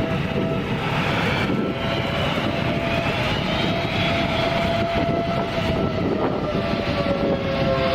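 Jet aircraft engines running at high power: a steady, loud rush with thin whining tones that drift in pitch, one sliding slowly lower near the end.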